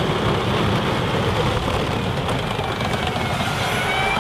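Steady rushing of water spraying over a muddy toy tank as it is washed.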